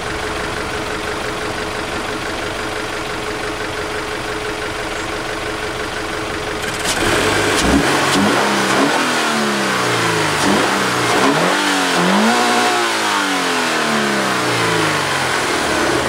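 Toyota GT86's 2.0-litre flat-four boxer engine, completely stock with its original paper air filter, idling steadily. From about seven seconds in it is revved several times, the pitch rising and falling with each blip of the throttle.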